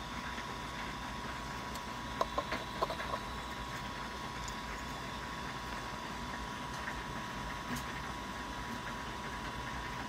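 Steady hum with a high whine from the 3D printer's running fans, with a handful of light clicks about two to three seconds in from the printed plastic boat being handled.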